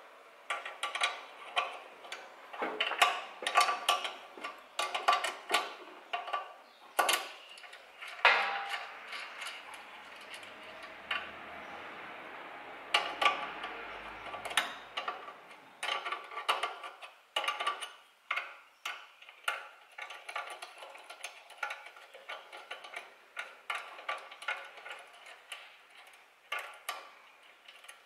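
Hand tools and steel parts clicking and tapping irregularly as a fork link is fitted to a Lambretta scooter's front fork.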